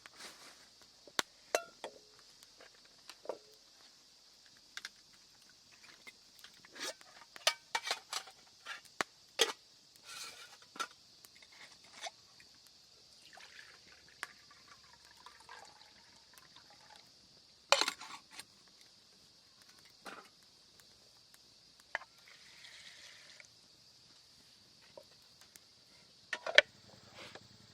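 Scattered clinks, taps and knocks of camp cookware and utensils being handled, over a faint steady high hiss.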